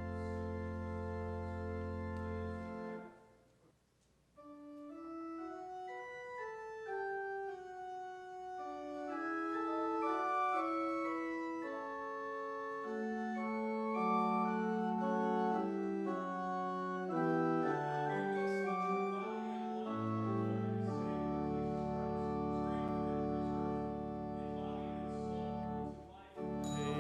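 Church organ playing: a held chord releases about three seconds in, and after a short pause a melody moves over sustained chords, with a low bass coming in about three-quarters of the way through.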